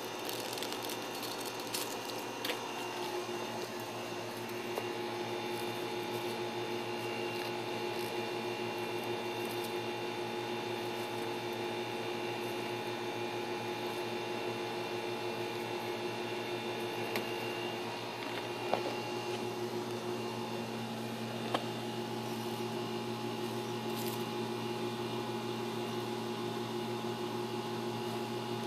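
Steady machine hum made of several steady tones over a low hiss, with a few faint clicks.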